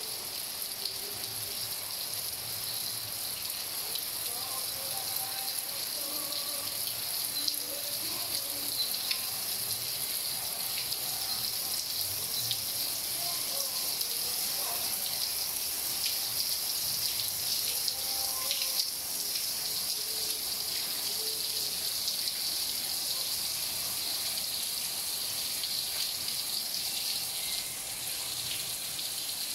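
Steady rain falling: a continuous even hiss, with scattered nearer drops ticking now and then.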